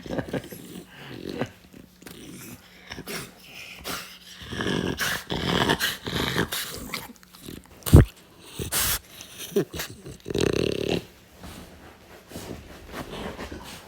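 French bulldog growling in irregular bursts as it guards against a strange noise. A single sharp knock about eight seconds in is the loudest sound.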